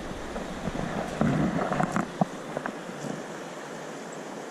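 Steady rush of a river's flowing water, with a brief click a little after two seconds in.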